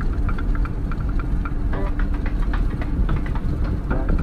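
Road and engine noise inside the cab of a moving truck: a steady low rumble with a faint hum, and light short blips repeating over it.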